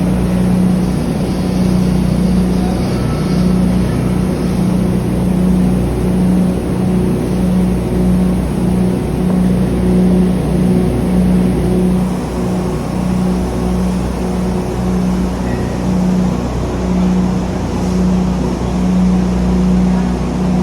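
Impact pulveriser running steadily, with a loud, slightly pulsing low hum under a dense whirring rush of noise.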